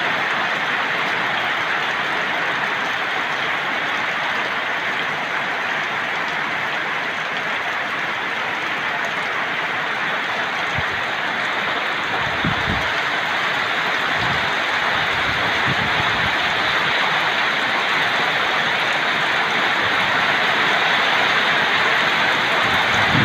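Heavy downpour: rain falling in a steady, dense hiss, with a few low thuds about halfway through.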